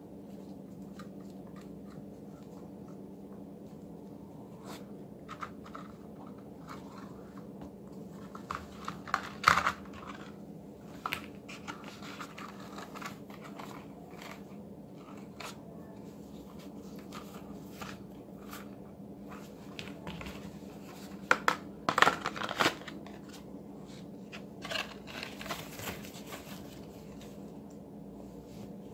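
Handling sounds of a toy police holster set: a nylon strap and a plastic holster rustling, scraping and clicking, with two louder bursts of clatter, over a steady low hum.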